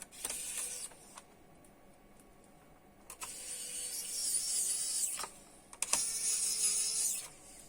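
Small mechanical clicks and rasping scrapes from hand work on an open laptop: parts and screws being handled. The clicks are scattered, with two stretches of high scraping in the second half.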